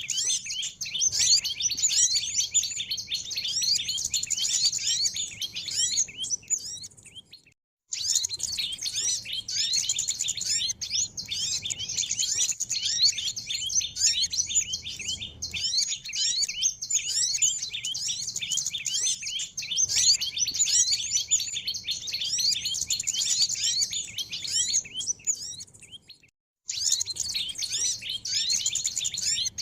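A dense chorus of small songbirds giving rapid, high twittering chirps without pause: a bird-lure (pikat) recording that mixes several small bird species. The chirping fades out and stops briefly twice, once about a quarter of the way in and once near the end, then starts again at full strength.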